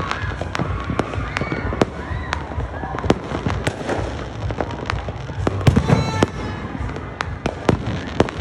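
Aerial fireworks and firecrackers going off: a dense, irregular run of sharp bangs and crackles, with a cluster of louder bangs about six seconds in.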